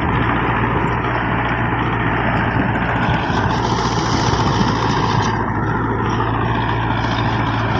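International tractor fitted with a Mahindra 575 DI diesel engine, running steadily under load as it pulls a 7-foot Shaktiman rotavator whose blades churn dry soil and stubble.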